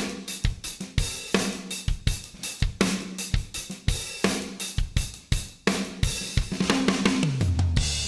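Acoustic drum kit played in a steady groove: kick and snare hits under hi-hat and cymbal wash. Near the end comes a fast run of hits that fall in pitch.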